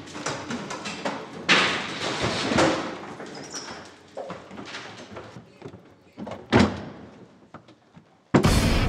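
Doors banging and hurried footsteps and scuffling, a run of irregular knocks with a few loud hits. Near the end a sudden loud, deep musical hit like a timpani stroke comes in and holds.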